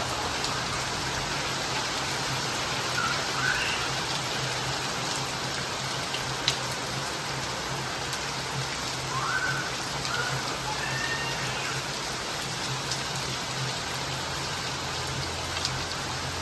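Steady rain falling, an even hiss with scattered louder drips; one drip about six and a half seconds in is the sharpest. A few short rising chirps come through the rain twice, a few seconds in and again around the middle.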